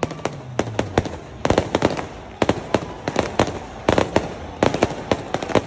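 Aerial fireworks going off overhead in a rapid, irregular string of sharp bangs, several a second, some overlapping.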